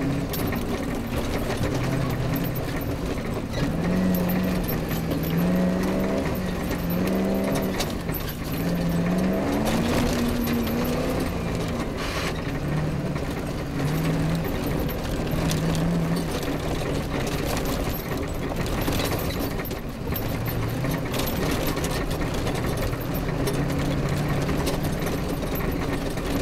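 Off-road rally car's engine under hard driving, its pitch climbing and dropping again and again as it accelerates and changes gear, over a constant rush of noise.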